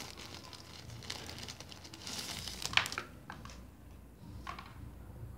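Plastic packaging crinkling and rustling as it is handled, with a few sharp clicks, the loudest about halfway through.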